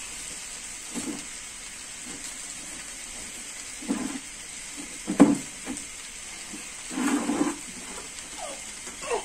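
Water yam akara fritters deep-frying in hot oil in a pan, a steady sizzle as more batter drips into the oil. Short vocal sounds come and go over it, the loudest about five seconds in.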